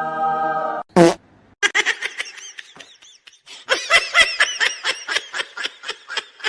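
A steady buzzing tone that cuts off just under a second in, a loud sudden burst, then rapid high-pitched laughter in two runs.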